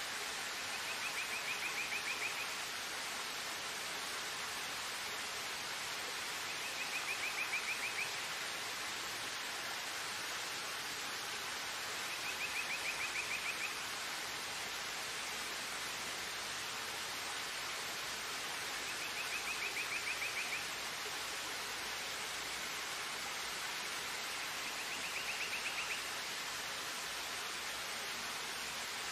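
Steady rushing noise, like fast water, with a high, rapidly pulsed chirp about a second and a half long repeating about every six seconds, five times in all.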